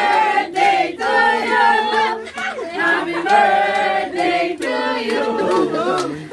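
A group of people singing together, many voices at once, some women's voices clear on top, with held notes.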